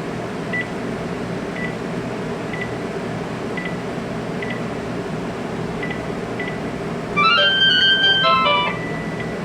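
Cordless phone giving short, high electronic beeps about once a second, then, about seven seconds in, a quick electronic ring melody of stepping notes lasting about a second and a half. A steady low hum lies under it.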